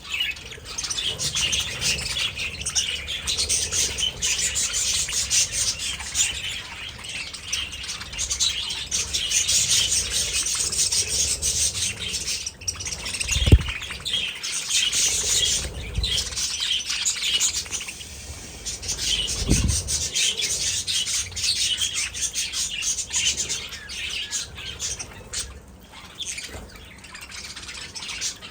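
A flock of budgerigars chattering and chirping continuously in an aviary, a dense overlapping mass of high chirps. Three brief low thumps come in the middle.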